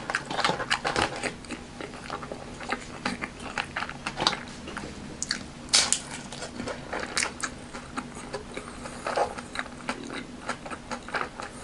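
Crisp deep-fried spring roll being bitten and chewed, its fried wrapper crunching in many short, irregular crunches.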